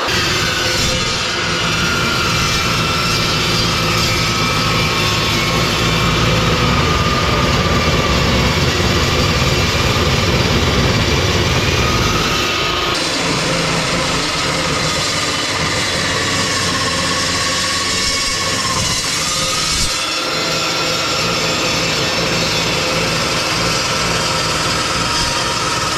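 Metal chop saw running and cutting steel angle iron: a steady, loud motor whine over a dense grinding noise. The whine sinks slowly in pitch through the second half and breaks off briefly before coming back near the end.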